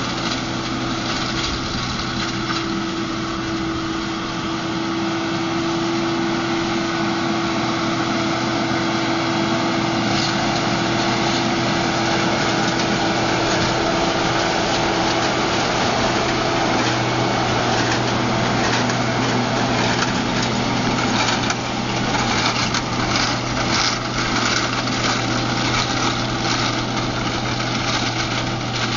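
JCB Fastrac tractor's engine running steadily under load, pulling a Krone loader wagon that is picking up grass for silage.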